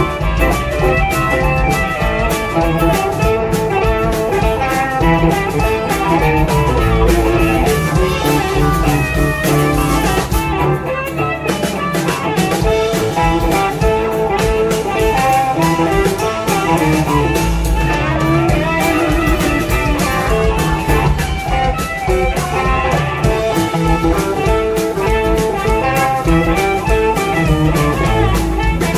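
Live blues band playing an instrumental passage: electric guitar, blues harmonica, bass and drums. The bass and drums thin out briefly about eleven seconds in.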